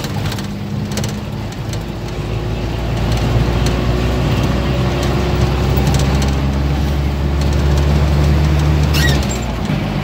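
Vehicle engine running at cruising speed with road noise, heard from inside the cabin. The low hum grows stronger about three seconds in and eases off shortly before the end.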